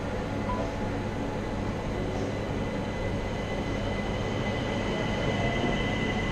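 Train running at a railway station: a steady low rumble with a thin high whine that slowly grows louder.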